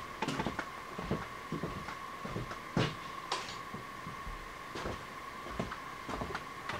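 Scattered light clicks and knocks of tools being handled at a metal lathe, over a steady high-pitched hum.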